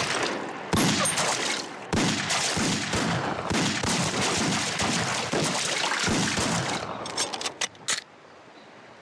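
Rapid, repeated pistol gunfire from Mauser C96 pistols fired into a pond, shot after shot with echo, for about eight seconds. A few sharper, thinner cracks come near the end before the firing stops.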